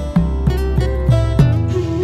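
Background music: plucked string notes over a steady low drone, with a beat about three times a second.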